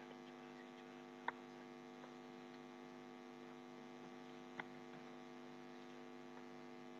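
Near silence with a faint, steady electrical mains hum, and two faint clicks, about a second in and about four and a half seconds in.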